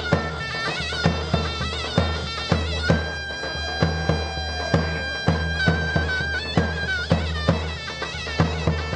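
Turkish folk dance music: a shrill reed-pipe melody over a drum beat of about two strokes a second. Near the middle the pipe holds one long high note for two or three seconds.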